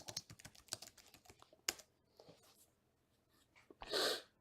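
Computer keyboard typing: a quick run of key clicks that stops a little under two seconds in, followed about four seconds in by a short breathy burst.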